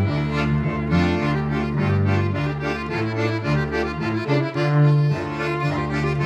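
Accordion, cello and violin playing an instrumental passage of a Yiddish song, with no voice, the accordion leading and the cello's low notes changing about every half second.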